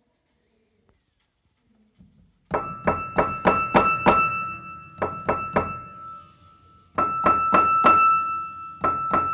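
Piano keys struck in quick runs of repeated notes on one high pitch, starting about two and a half seconds in. Each strike carries a wooden knock, the wooden "knock" heard when playing.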